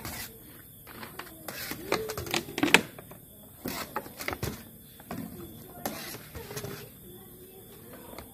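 Voices talking quietly, broken by several short clinks and knocks of a steel spoon stirring milk soda in a steel bucket.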